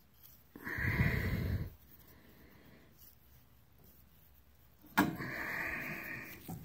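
Two bursts of rubbing and handling noise from a gloved hand working close to the microphone. The first lasts about a second, just after the start. The second begins with a sharp click about five seconds in and runs a little over a second.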